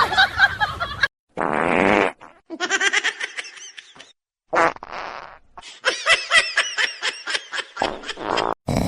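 A string of short, separate sounds with sudden silent gaps between them: a fart-like buzzing noise and bursts of laughter.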